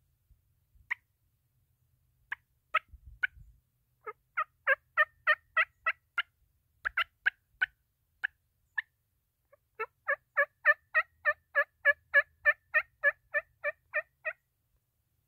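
Turkey call imitating a hen: a few single clucks, then runs of yelps, the longest about fifteen notes at three to four a second near the end.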